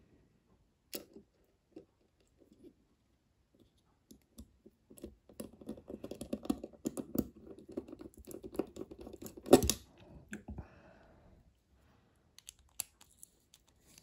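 Precision screwdriver working the pivot screw of a Bestechman Mini Dundee folding knife: light metal clicks and scrapes, scattered at first, then a dense run of quick ticking for about five seconds with one louder knock near its end, then a few more clicks.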